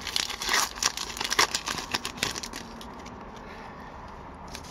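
Shiny foil wrapper of a hockey card pack being torn open and crinkled in the hands, a dense crackling for the first couple of seconds, then only light handling noise.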